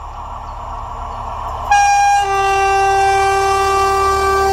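SU45 diesel locomotive approaching with a growing rumble, then sounding its horn about two seconds in: a high tone, joined half a second later by a lower tone, held as a loud two-note chord for around three seconds.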